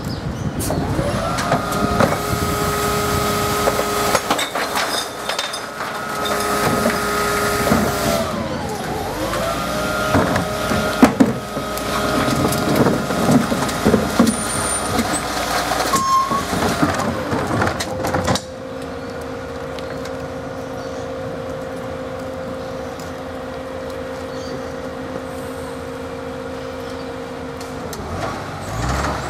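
Rear-loader garbage truck working its hydraulic bin lifter: the engine revs up and holds a steady whining pitch twice, each time dropping away again, while rubbish knocks and clatters into the hopper. About two-thirds of the way through it settles into a quieter, steady drone, which winds down near the end.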